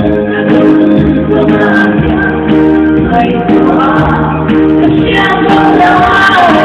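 A woman singing a gospel song into a handheld microphone over instrumental backing music, holding long notes that bend near the end.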